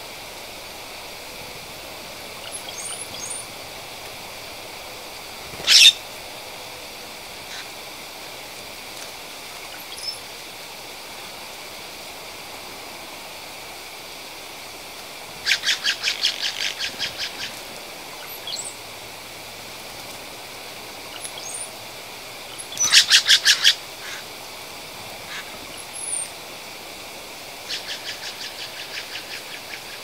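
Wild birds calling: three rapid rattling series of evenly spaced notes, the loudest sounds, with one sharp single call and scattered faint high chirps between them.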